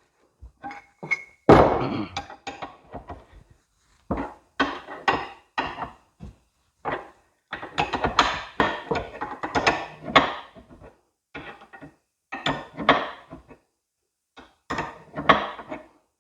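Steel tools knocking and clanking as a wrench with an extension bar works a tight nut off a hydraulic cylinder's piston rod: one sharp metal knock with a short ring about a second and a half in, then irregular bunches of clanks and rattles. The nut is stiff, held by thread-locker.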